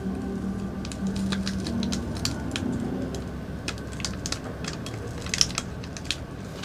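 Paper sachet of pH 4.00 buffer powder crinkling and being tapped as the powder is shaken out into a glass of water: an irregular run of small clicks and crackles.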